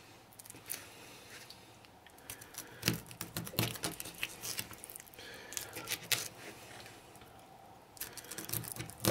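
Kitchen knife slicing through a cold-smoked mackerel and knocking on a plastic cutting board: irregular soft clicks and taps, with a quiet stretch shortly before the end.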